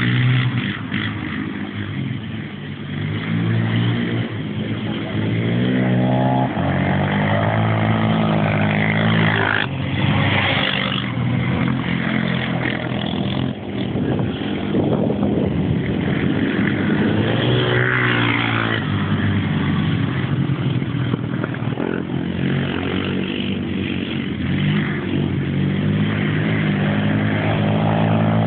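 Racing quad bike (ATV) engines revving hard, several at once, their pitch climbing and dropping again and again as they accelerate and shut off around the track.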